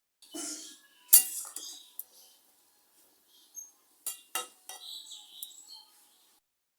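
Metal kitchen utensils clinking and scraping against pots and dishes, with sharp knocks about a second in and again around four seconds in, and scraping between them.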